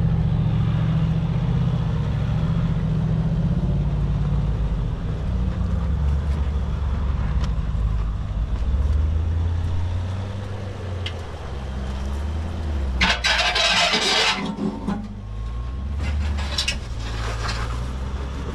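Off-road Jeep engine running at low revs on a trail, its pitch rising and falling with the throttle. About two-thirds of the way through comes a loud rushing noise lasting about a second and a half, and a weaker one a few seconds later.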